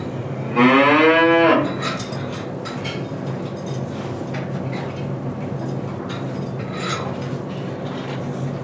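A cow moos once, about half a second in: a single call of about a second that rises slightly in pitch. It sits over a steady low hum and a few faint knocks.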